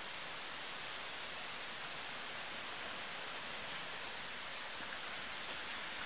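Steady rush of water from a distant waterfall, an even unbroken noise, with one faint click near the end.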